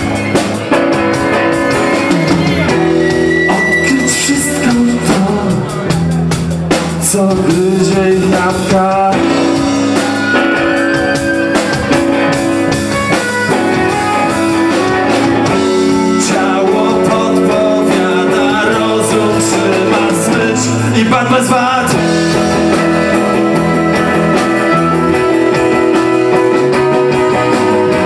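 Rock band playing live: electric guitar, violin and drums, with a man singing.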